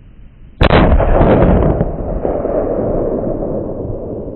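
A single long-range hunting rifle shot about half a second in: a sharp report followed by a long rolling echo that fades slowly.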